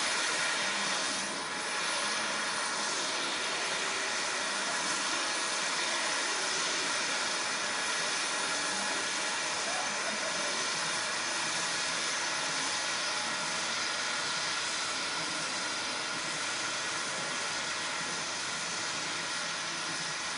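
Turbofan jet engines of a Lockheed C-5M Super Galaxy, four General Electric CF6-family engines, running with a steady rushing jet noise that eases slightly near the end.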